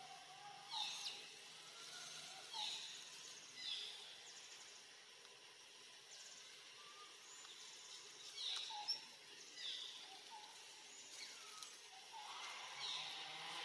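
Birds calling: short, high, falling calls that come about half a dozen times at irregular intervals, over faint steady outdoor background noise.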